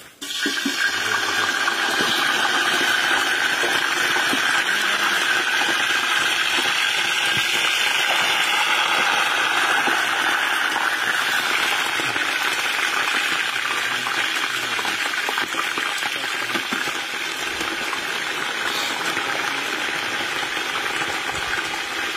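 Goat meat frying in hot oil in a metal pot over a wood fire: a steady sizzling hiss that starts abruptly.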